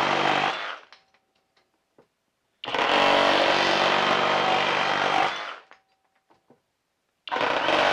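Flex cordless reciprocating saw cutting through a wooden 1x6 board with the orbital action off, in three bursts. One cut stops within the first second, a full cut of about three seconds follows, and the next cut starts near the end, with a few faint ticks in the short quiet gaps.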